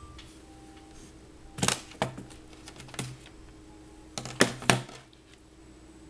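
Sharp plastic clicks and knocks as an Acer Aspire Switch 10 tablet is lifted off its keyboard dock and handled: about five clicks, two pairs close together, the last pair a little after the middle.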